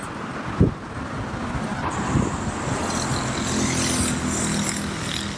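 Car traffic on a city road: steady road and engine noise, with a short thump about half a second in and a steady engine hum in the second half.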